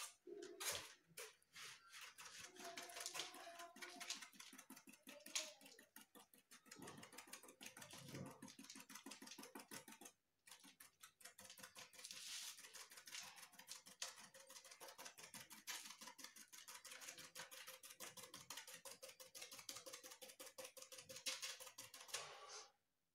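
Faint, quick tapping of a paintbrush dabbing paint onto an expanded-polystyrene (thermocol) sheet, several soft taps a second.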